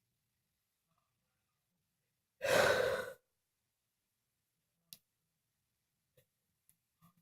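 A person sneezing once, a single loud burst under a second long, followed by a few faint clicks.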